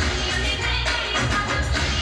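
Garba dance music with a steady beat.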